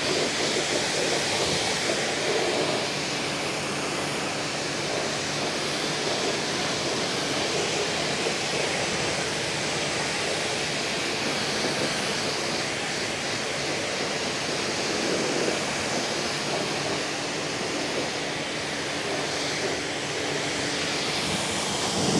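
Hotstarr high-pressure washer spraying a jet of water onto a car to rinse it, a steady hiss of spray with a faint steady hum underneath.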